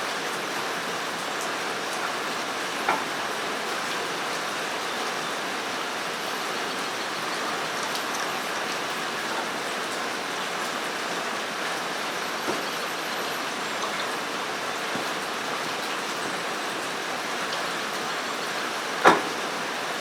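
Steady rain on a metal roof, an even hiss, with a short knock about three seconds in and a louder sharp knock near the end.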